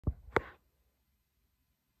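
A low thump, then a sharp click about a quarter second later.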